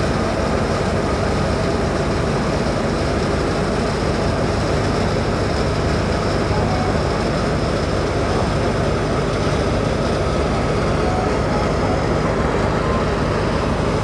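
Tractor-driven wheat thresher running steadily, an even, unbroken machine hum.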